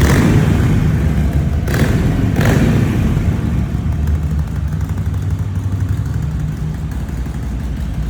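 Harley-Davidson Iron 883's air-cooled 883 cc V-twin engine blipped three times in quick succession over the first three seconds, then settling to a steady idle.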